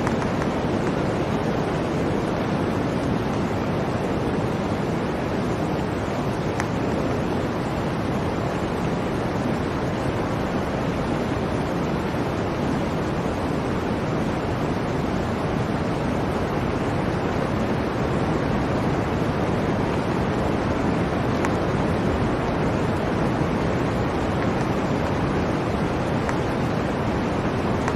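Blizzard wind: a steady, even rush of wind noise with no gusts, breaks or separate sounds.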